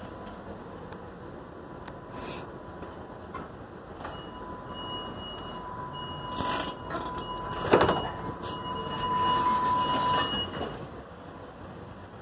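Commuter train door-closing warning: a string of high electronic beeps repeating for about six seconds, with a loud thump partway through as the sliding doors shut.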